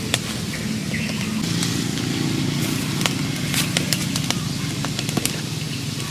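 Open wood fire crackling, with irregular sharp pops over a steady low rumble, as it burns under bamboo tubes of shrimp.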